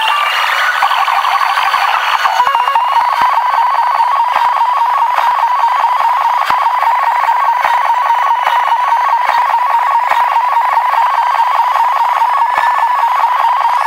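A rapid, evenly pulsing electronic beep at one steady pitch, starting about two seconds in; before it, a warbling mix of tones.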